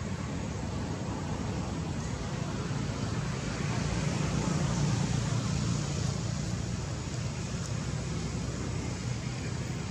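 Steady outdoor background rumble and hiss, swelling a little about four seconds in and easing off again after about six seconds.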